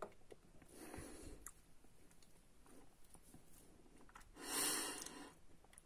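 A double-walled espresso glass set down on the worktop with a click, then quiet mouth sounds of tasting a sip of espresso, with one louder breath-like rush about four and a half seconds in.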